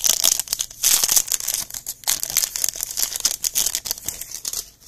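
Foil wrapper of a baseball card pack being torn open and crinkled by hand: a dense, crackling rustle that dies away near the end.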